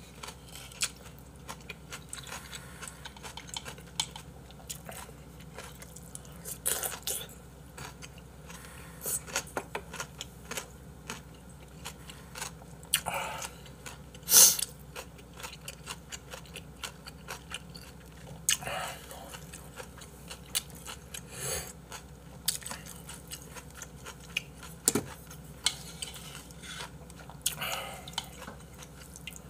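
A person eating soup from a bowl with a spoon, close to the microphone: chewing, with the spoon clinking and scraping against the bowl in many short clicks. One louder sharp noise comes about halfway through, as the bowl is raised to the mouth.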